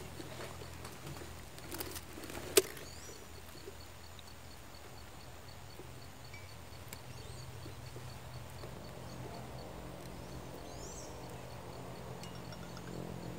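Quiet outdoor background with a steady low hum and a few short, high bird chirps. A single sharp click comes about two and a half seconds in, with a couple of softer clicks just before it.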